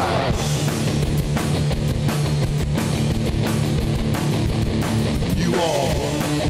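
Loud rock music: a band playing with electric guitars and a drum kit, a steady, driving passage with no speech.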